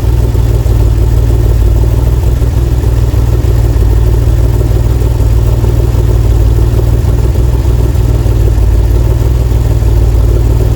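DeLorean DMC-12's PRV V6 engine idling steadily while its idle mixture is being set; the exhaust gauge reads around 3% CO, slightly rich.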